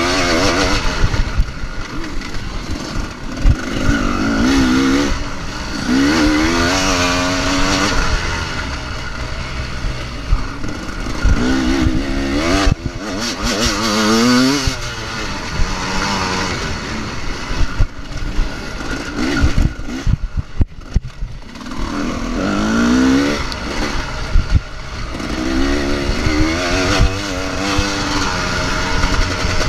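Motocross bike engine heard from a camera on the bike, revving up through each gear and easing off again and again as it is ridden round a dirt track, over a constant rumble of wind and bumps.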